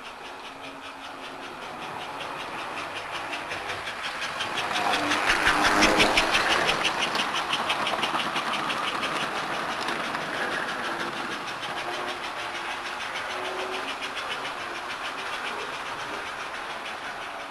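American Flyer model coal train running past on its track, its wheels and motor making a rapid, even clicking and rattling. The sound builds as the train approaches, is loudest about six seconds in as the cars pass close by, then fades as it moves away.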